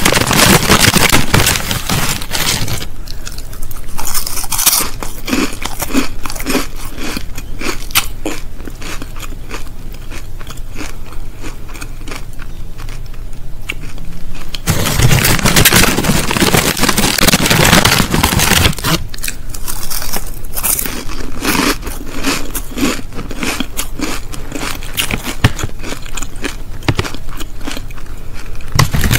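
Close-miked crinkling of a crisp packet and crunching of crisps: dense crackling near the start and again for a few seconds past the middle, with sparser sharp crunches in between.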